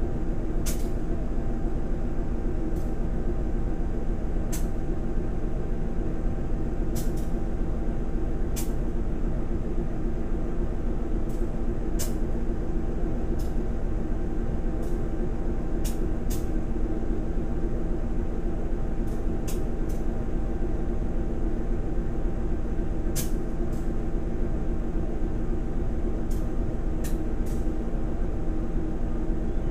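Diesel train engine idling while the train stands still: a steady drone with a constant hum, with scattered sharp clicks over it.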